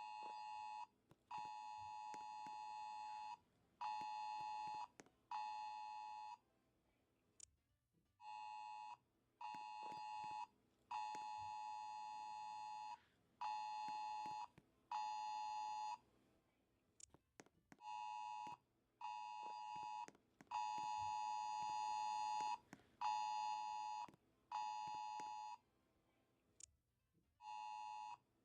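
iPhone (iOS) alarm tone ringing: a repeating electronic beeping phrase of five bursts of varying length, the phrase recurring about every nine seconds after a short pause.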